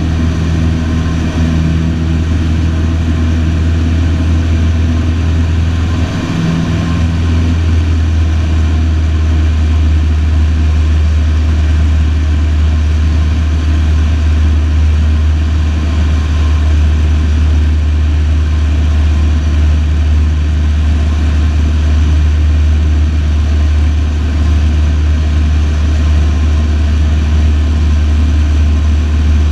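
Single-engine light aircraft's piston engine and propeller droning steadily, heard inside the cabin. The engine note changes about six to seven seconds in, after which the drone runs on evenly.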